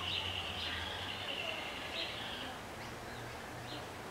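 An insect trills steadily on one high note and fades out about two and a half seconds in, with a few faint bird chirps.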